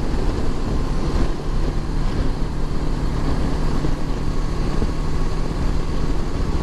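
Wind rush on the microphone over a Honda CB500X's parallel-twin engine cruising at steady speed. The sound is a loud, even low rumble with a faint constant hum and no changes in pace.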